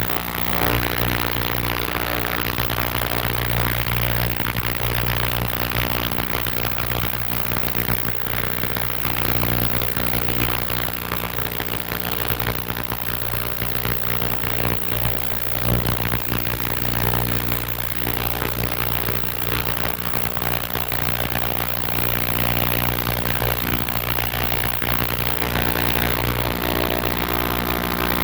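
Ultrasonic cleaner running with carburetor parts in its bath: a loud, steady hum with a hiss over it.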